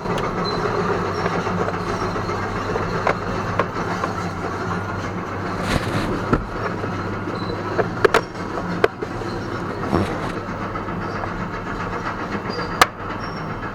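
Plastic steering-column cover pieces being pressed together and clicking into place, with a few scattered clicks and one sharp snap near the end. A steady loud background rumble runs underneath.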